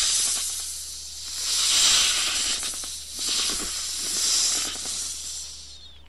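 An animal hissing in several long breath-like swells, each rising and fading.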